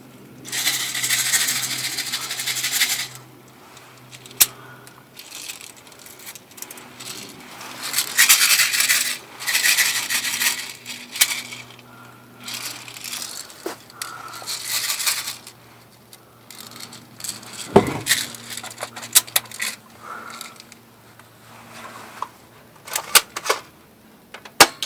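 Airsoft Mossberg M590 pump shotgun being handled: stretches of metallic rattling and clinking, a single heavy knock, and a run of sharp clicks near the end.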